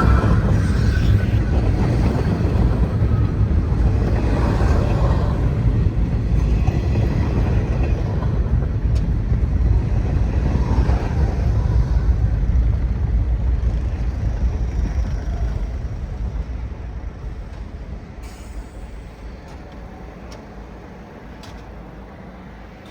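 New York City subway train running along the elevated steel structure, a dense low rumble with a brief high wheel squeal at the very start, steady for most of the time and then fading away from about fourteen seconds in as the train draws off.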